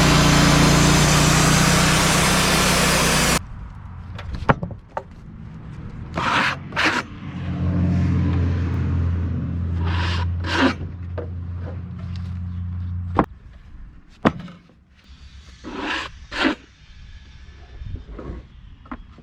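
Wood-Mizer LT35 portable sawmill running: for about three seconds the engine and band blade run loud and then cut off abruptly. Afterwards there are knocks and short scrapes of wood being handled, with the mill's engine humming more quietly for a few seconds in the middle before stopping suddenly.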